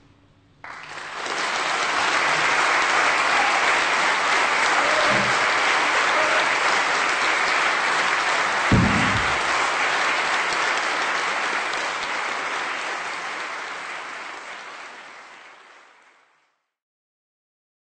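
Audience applauding, starting about a second in, holding steady and fading away near the end. A single low thump sounds about halfway through.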